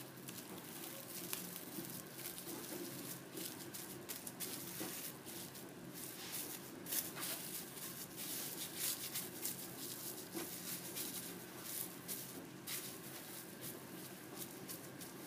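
Plastic cling film crinkling and rustling under the hands as a soft biscuit-and-cocoa mixture wrapped in it is rolled and pressed into a log: a dense run of small irregular crackles.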